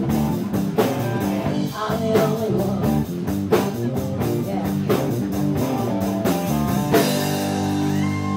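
Live rock band with electric guitar and drum kit playing through an amplified PA in a room. About seven seconds in the drumming stops and a final chord rings on.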